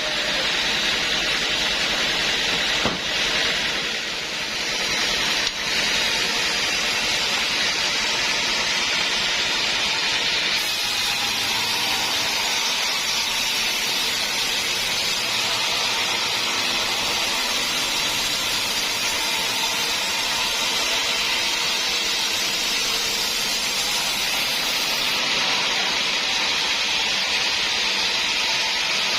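Sawmill saw cutting through a dense acacia stump, a steady hissing run of the blade through the wood.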